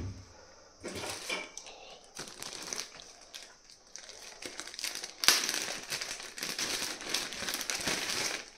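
Clear plastic bags crinkling and rustling as they are handled and opened, densest and loudest over the last three seconds. A single thump comes right at the start.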